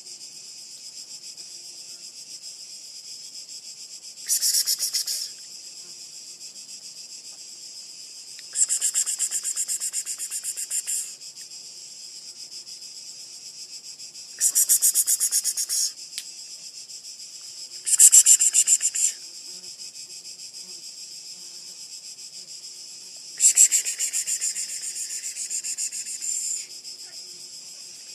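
Cicadas buzzing in five loud bursts of one to three seconds each, over a steady high-pitched drone of insects.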